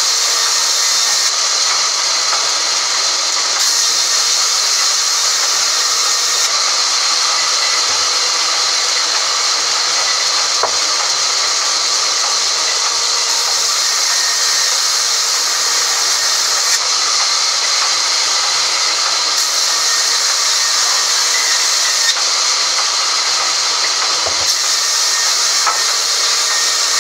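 Sawmill band saw running and cutting through a crooked log: a loud, steady high hiss, with a few faint knocks.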